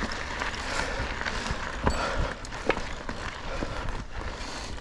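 Mountain bike rolling over a dirt trail: a steady rushing noise of tyres and air, with scattered clicks and rattles from the bike.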